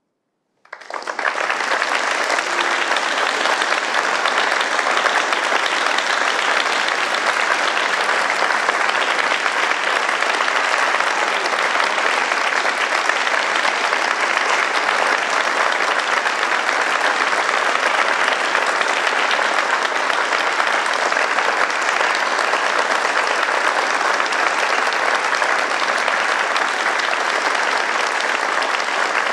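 Audience applause, breaking in suddenly within the first second and holding steady and dense throughout.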